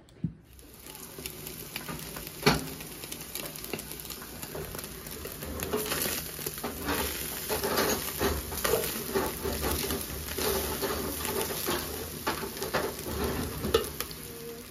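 A metal slotted spoon stirring shredded pork frying in a large aluminium pot. It makes steady sizzling with repeated scrapes and clinks against the pot, and two sharper clanks come about two and a half seconds in and near the end.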